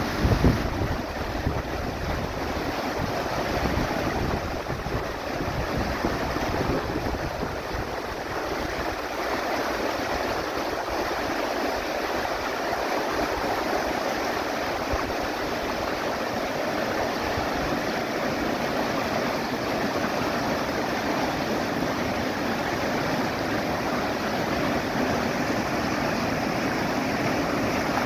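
Shallow river rushing steadily over rocks through white-water rapids. Wind buffets the microphone with a low rumble in the first second.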